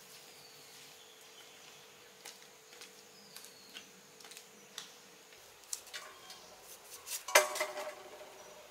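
A series of light taps and clicks, then a stainless steel bowl clattering on concrete about seven seconds in, ringing briefly after the knock. A faint steady tone and a few high chirps sit underneath.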